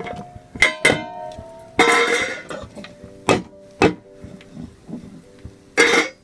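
Stainless steel cookware clanging as mango slices are tipped from a steel plate into a pressure cooker: several sharp metallic knocks, each followed by a ringing tone, with a brief scraping rush about two seconds in.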